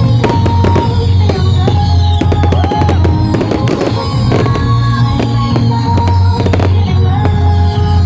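Fireworks display: many sharp bangs and crackles going off in quick succession, over loud music with a heavy bass.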